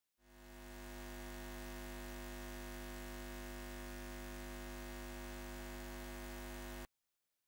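Steady low hum made of many held tones, fading in over about a second and cutting off abruptly near the end.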